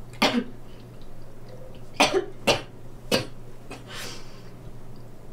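A young woman coughing into her fist: four short, sharp coughs with pauses between, then a softer, breathy sound about four seconds in.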